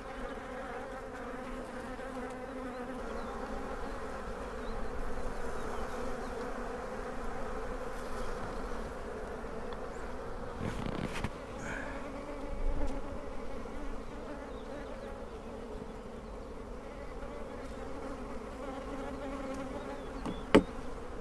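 Honeybees humming steadily over an open hive during an inspection, a drone that holds level throughout. Two short knocks sound, one about halfway through and one near the end.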